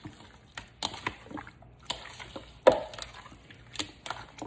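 Raw chicken pieces being mixed with beaten eggs and seasoning in a bowl: irregular wet squelches and slaps, the loudest a little under three seconds in.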